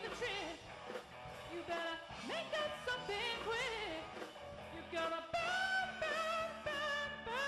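Live rock band playing, an electric bass going underneath, with high notes above it that bend and slide.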